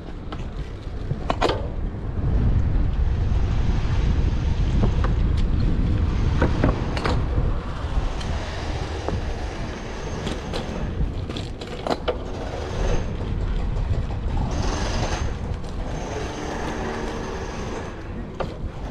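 Wind rumbling on a chest-mounted action camera's microphone while riding a road bike, with scattered clicks and rattles from the bike on the street surface. The rumble is strongest for several seconds early in the ride.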